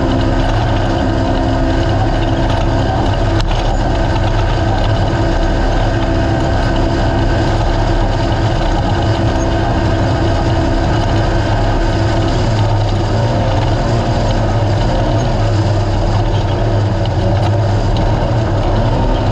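Naturally aspirated race UTV engine running steadily at speed, with a constant rush of wind and ground noise over it. Its pitch wavers a little in the second half.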